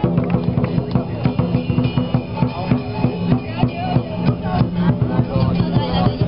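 Lion dance drumming: a large drum beaten in rapid, steady strokes, with clashing cymbals.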